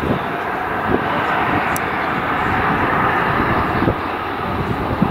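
The twin CFM56-3 turbofan engines of a Boeing 737-300 freighter running at low thrust as the jet taxis and turns onto the runway. The jet noise is steady and swells slightly in the middle.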